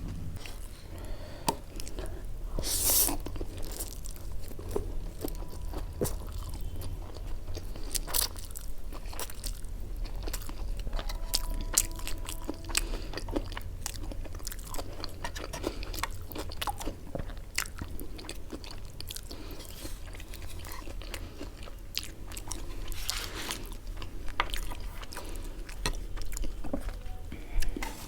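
Close-miked eating: a person biting and chewing food, with many short, sharp crunches scattered throughout. A steady low hum runs underneath.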